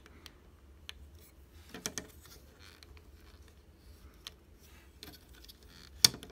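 Hard plastic 3D crystal puzzle pieces being pressed and worked together by hand: scattered small clicks and rubbing, with a sharp snap about six seconds in as the piece seats.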